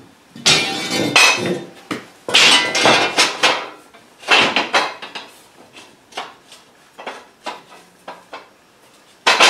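Laser-cut steel plates clanking and scraping against each other as tab-and-slot welding table parts are fitted together, in irregular clusters of metallic clanks with lighter clicks and one sharp clank near the end.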